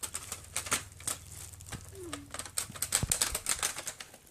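Rapid, irregular clicks and clacks of Xbox 360 plastic parts being handled and fitted back together, with a low knock about three seconds in. A faint steady low hum runs underneath.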